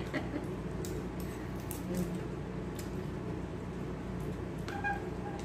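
Small boiled crabs being pulled apart and eaten by hand: scattered small cracks and clicks of shell, with chewing, over a steady low room hum.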